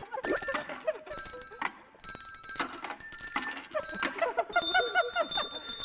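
Tuned handbells struck one after another in a quick, uneven run, ringing bright notes of a short melody that jumps back and forth between two notes.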